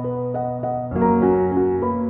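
Background piano music: a soft melody of single notes over held low notes, moving to a new, fuller chord about a second in.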